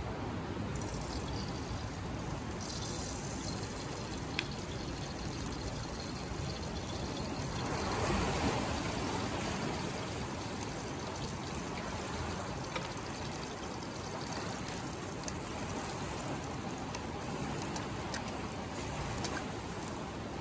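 Steady rushing of moving water, swelling about eight seconds in, with a few faint clicks over it.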